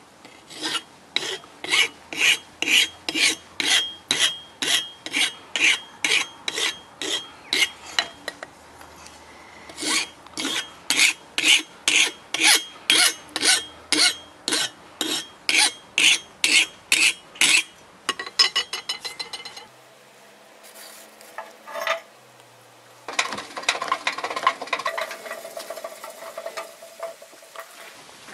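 A hand file rasping across the steel blade of a forged tomahawk head, in steady strokes a little over two a second: two long runs of about seventeen strokes each, with a short pause between them. Near the end, a few seconds of a different, rougher clatter and hiss.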